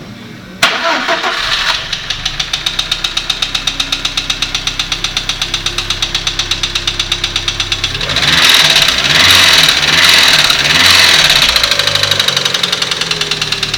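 A Lada Priora's four-cylinder petrol engine is started, cranking and catching under a second in, then idles with a rapid, regular knock of about six beats a second. It is revved three times, then settles back to a knocking idle. The knock persists after the hydraulic lifters were replaced, so it is not the lifters.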